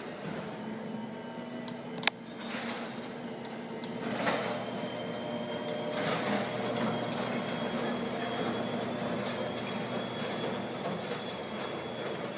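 LiftMaster 8550 DC belt-drive garage door opener running, a quiet steady hum and whine with the door panels rumbling along their tracks. A sharp click comes about two seconds in.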